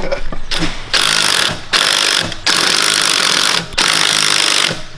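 Pressurised spray hissing loudly in four bursts, each about a second long, with short breaks between them.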